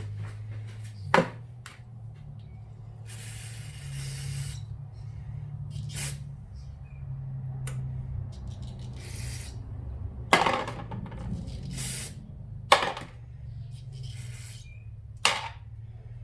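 Three short hissing sprays on small carburetor parts, with five sharp metallic clinks and knocks of parts and tools, over a steady low hum.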